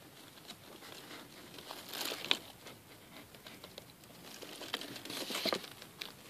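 Dry hay and a paper bag rustling and crackling as baby guinea pigs shuffle in their nest. It comes in two louder bursts of crackles, about two seconds in and again about five seconds in.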